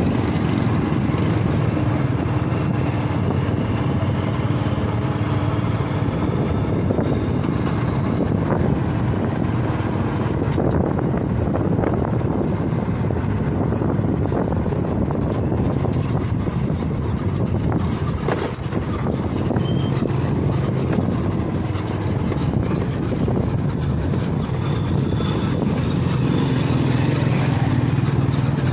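Small motorcycle running steadily at low speed, heard from the rider's seat, with the continuous noise of the ride and a single knock about two-thirds of the way through.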